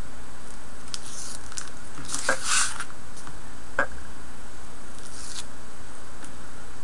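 Short rustles and crackles of paper and tape being handled, as the backing liner is peeled from double-sided scor-tape along the edge of a paper background, with one sharp tick near the middle. A steady low hum runs underneath.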